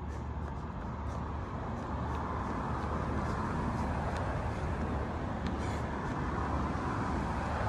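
Road traffic noise, swelling gradually over several seconds as a vehicle passes.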